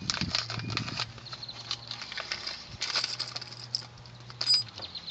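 Small metal speaker-mounting brackets and hardware clicking and rattling as they are handled, a quick irregular run of light clicks and rustles over a low steady hum.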